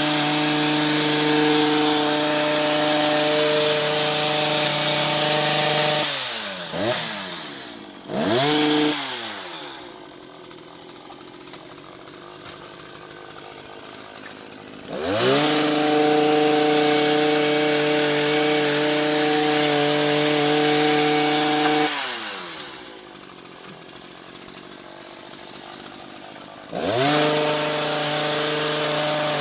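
Two-stroke petrol hedge trimmer engine revved high while cutting, then let back to idle: held at high speed for several seconds, dropping to idle about six seconds in with a quick blip of throttle, revving up again for several seconds, idling again, and revving up once more near the end.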